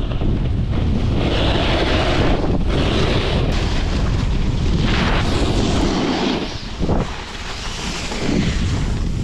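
Wind rushing over a camera microphone while snowboarding downhill, with the board's edge hissing and scraping on firm, packed snow in swells through the turns. The noise briefly eases about two-thirds of the way in.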